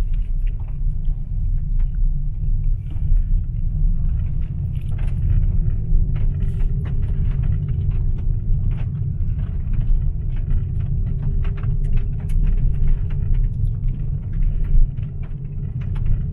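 Opel Corsa rolling over a gravel road, heard from inside the cabin: a steady low rumble from the tyres with frequent small clicks of loose stones. The car is coasting downhill.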